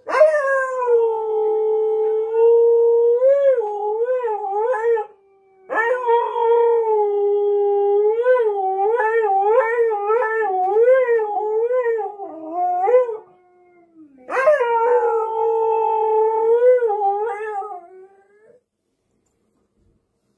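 Husky howling: three long howls with short breaks between them, each starting on a held note and then wavering up and down in pitch. The last one stops a couple of seconds before the end.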